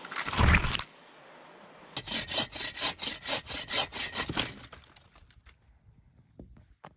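Hand saw cutting through a dead branch in quick back-and-forth strokes, about four or five a second, starting about two seconds in and fading out after about four and a half seconds. A brief loud rush of noise comes before it, at the very start.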